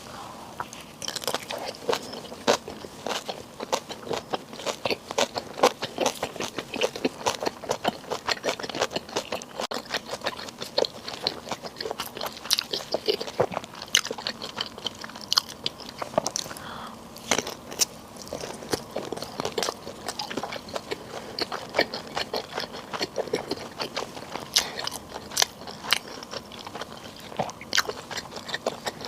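Close-miked eating sounds: a person biting and chewing food, with many sharp, irregular mouth clicks and crunches.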